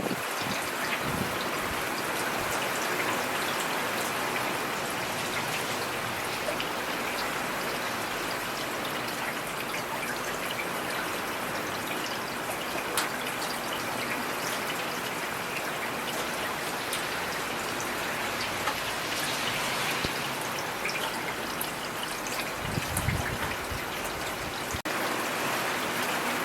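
Steady rainfall, an even hiss flecked with the ticks of single drops. A brief low rumble comes about three-quarters of the way through.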